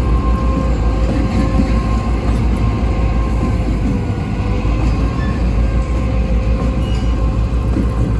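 Norfolk Southern diesel-electric locomotive passing slowly at close range, its diesel engine running loud and steady with a deep rumble and a faint thin whine above it, easing a little about halfway through.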